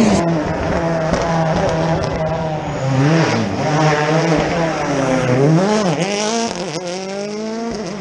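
Rally car engine being driven hard on a circuit stage. Its pitch climbs and drops several times in quick succession as it brakes, changes gear and accelerates away.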